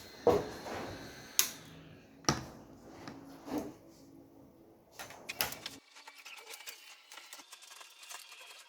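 Sharp clicks and knocks of small tools being handled on a repair bench, coming irregularly about a second apart. From about six seconds in, a run of faint quick ticks follows.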